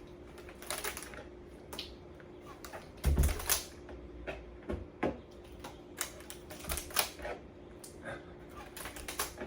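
Rubber bands being stretched and snapped one after another onto a watermelon's rind, each release a sharp snap at irregular intervals, with a heavier thump about three seconds in.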